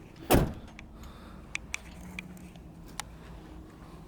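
A single sharp thump about a third of a second in, followed by a few faint clicks, as work goes on loosening parts at a car's wheel.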